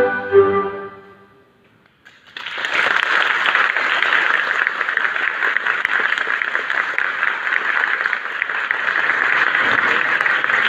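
The music ends on a final held chord that dies away within the first second or so. After a short silence, audience applause starts about two seconds in and goes on steadily.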